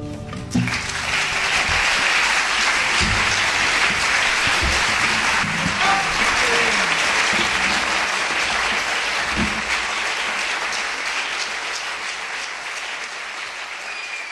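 Audience applauding, starting just after the last note of a song and slowly dying away near the end.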